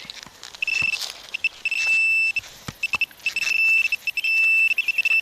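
Metal detector sounding a single high-pitched tone over a target: repeated short beeps and a few longer held beeps, the high tone that marks a non-ferrous target among iron nails. A few faint knocks sound between the beeps.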